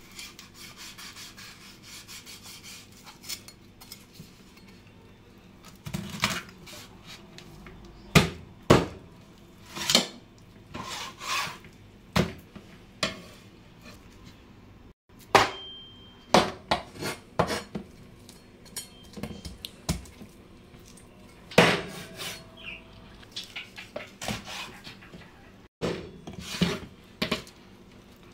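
Heavy cleaver chopping a raw whole chicken on a wooden cutting board: irregular sharp knocks as the blade goes through the bird and strikes the board, a few of them hard, with quieter cutting and scraping between.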